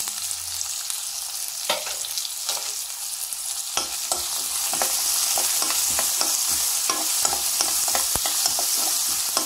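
Chopped onions sizzling in hot oil in a frying pan while a spoon stirs them, with short scrapes and taps of the spoon against the pan. The stirring strokes come thicker and the sizzle a little louder from about four seconds in.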